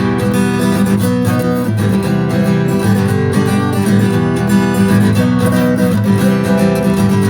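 Acoustic guitar strummed in a steady rhythm, playing chords for the intro of a ska song.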